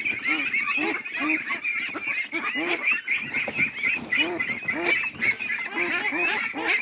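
A crowded flock of white ducks quacking nonstop, many short calls overlapping, as the birds are grabbed and handled in the pen.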